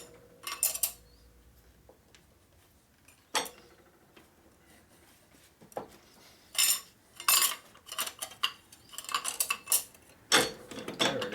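Hand tools clinking and scraping on metal engine parts as a stuck part is pried and worked loose: scattered sharp metallic clinks, with busier bursts of clatter in the middle and near the end.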